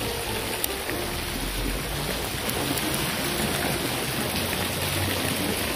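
Steady, loud rushing of water and rain. A single sharp click about half a second in.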